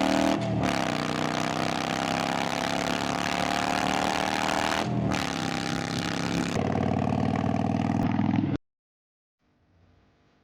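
Harley-Davidson Sportster 883's air-cooled V-twin exhaust under acceleration, its pitch climbing, with two brief breaks in the sound about half a second and five seconds in. The engine note turns rougher and lower, then cuts off suddenly a little past eight seconds, leaving near silence with faint ringing tones.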